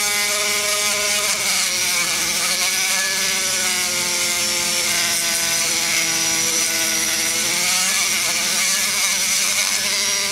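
Die grinder spinning a fine sanding bit against the aluminium wall of an LS cylinder head's exhaust port around the valve guide, smoothing and polishing out the rough-grit marks. A steady whine over a hiss, its pitch dipping and rising slightly as the bit is leaned into the metal.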